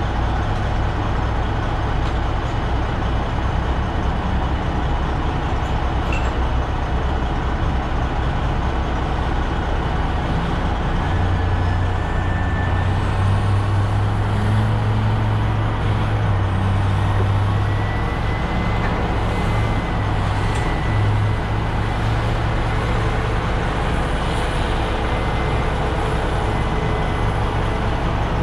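Heavy diesel engine running steadily with a deep, even drone that grows louder for several seconds in the middle.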